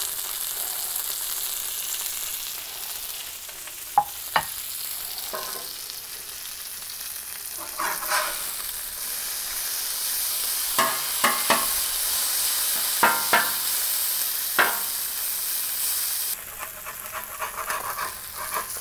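Salmon fillets and asparagus sizzling in butter on a Blackstone steel flat-top griddle, a steady hiss throughout. Over it come scattered sharp clicks and short scrapes, and near the end a metal spatula slides under a fillet to turn it.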